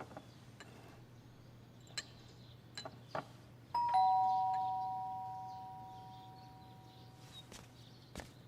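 Two-note ding-dong doorbell chime, a higher note then a lower one, each ringing on and fading slowly over a few seconds. It is preceded by a few faint clicks and knocks.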